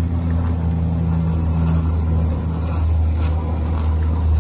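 An engine running with a steady low drone, unchanging in pitch, with a few faint ticks about three seconds in.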